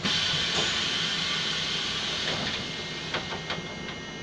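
Iveco Crossway bus's pneumatic doors opening: a loud hiss of released air starts suddenly and fades away over a few seconds, with a few light clicks near the end.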